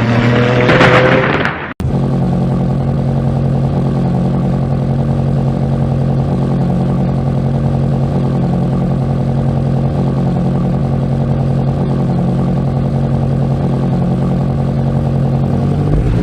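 BMW X6 M Competition's 4.4-litre twin-turbo V8 revving with rising pitch, then, after an abrupt cut about two seconds in, running steadily at an unchanging pitch.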